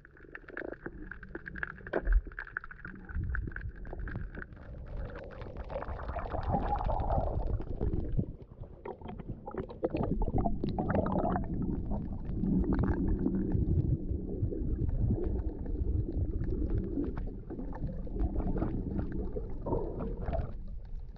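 Muffled underwater sound heard through a submerged action camera: a low rumble of moving water with many scattered crackling clicks, growing louder a few seconds in.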